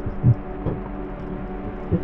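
Muffled underwater sound picked up by a submerged camera: a steady low hum with a few soft low thumps, the loudest about a quarter of a second in and another near the end.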